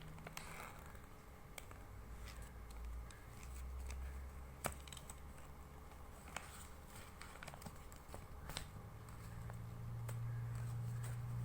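A sheet of A4 paper crinkling and rustling as a folded origami paper boat is opened out by hand, with scattered sharp crackles of the paper, the sharpest a little before the middle.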